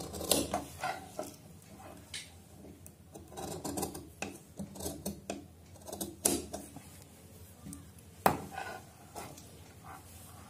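Large metal tailoring shears snipping through fabric, cutting away the excess along a stitched seam: irregular short snips and metallic clicks, with one sharper click about eight seconds in.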